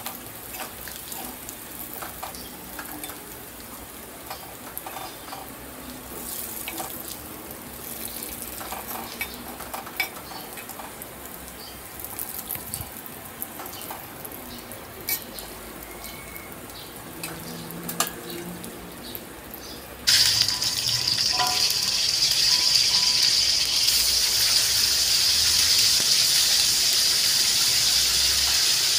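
Chopped aromatics frying in oil in a wok, with a spatula clicking and scraping against the pan. About twenty seconds in, a much louder, steady sizzle starts suddenly as whole red chilies and shallots fry in hot oil.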